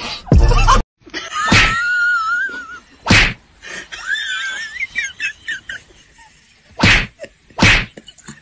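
A short loud burst cut off under a second in, then an angry cat yowling in wavering cries, broken by four sharp hisses.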